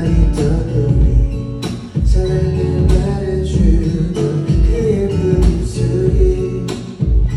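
Live pop song over a concert sound system: a male voice singing over a backing track with a steady, heavy bass beat.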